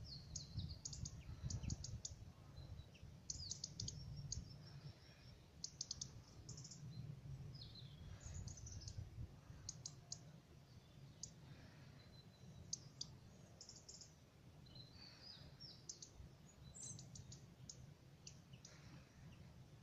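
Faint chirping of small birds, many short high calls in scattered clusters, over a low steady rumble.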